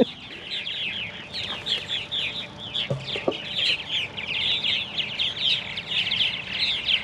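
Purple martin nestling begging: a steady run of short, high, downward-sliding chirps, about three to four a second, the call of a hungry chick wanting food.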